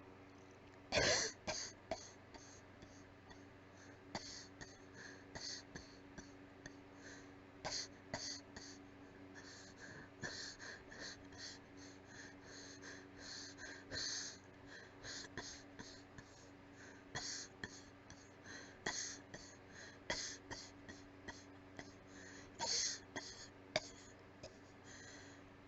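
A weak, breathy coughing fit: dozens of short, airy coughs in uneven clusters, the loudest about a second in.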